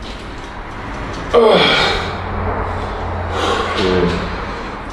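A man straining through leg press reps makes two loud effortful groans with a hard breath out, each sliding down in pitch. The first comes about a second and a half in, the second about three and a half seconds in.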